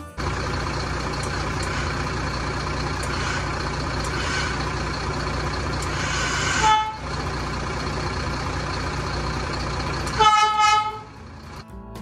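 Crane lorry's engine running, with a short blast from its twin roof-mounted air horns about six and a half seconds in and a louder, longer blast about ten seconds in. The horns are sounding on a newly fitted air solenoid, replaced because the old one was faulty.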